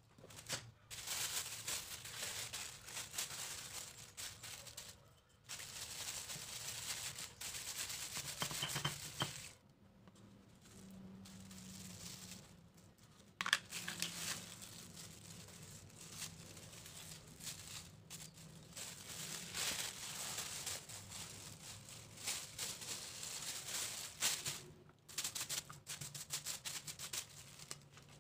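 Thin plastic sheet crinkling and rustling as rice dough is pressed flat inside its folds and the plastic is peeled back, in several long stretches with a quieter pause in the middle.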